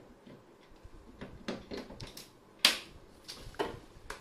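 Handling noise: a string of sharp clicks and knocks as a power adapter is pushed into a wall socket and its cable is handled, the loudest a single knock a little past halfway.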